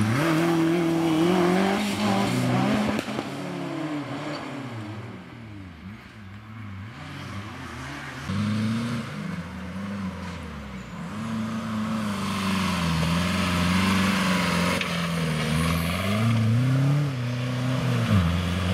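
Off-road race cars' engines revving hard on a dirt track, rising and falling in pitch with each throttle change and gear shift. The engine sound drops back for a few seconds partway through, then builds again as a car comes closer.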